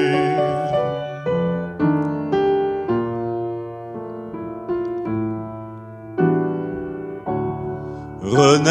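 Upright piano playing a slow solo passage between sung lines: chords struck one after another, each left to ring and fade. A man's held sung note dies away in the first second, and his voice comes back in just before the end.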